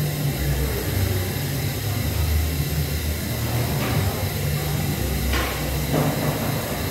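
Subway station ambience: a steady low rumble with a constant hiss, and a few brief rushing noises in the second half.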